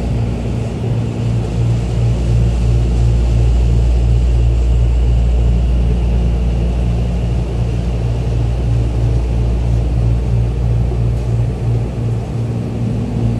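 Tokyo Metro 10000 series subway car heard from inside: a steady low running rumble with a faint high motor whine as the train brakes along the station platform and comes to a stop near the end.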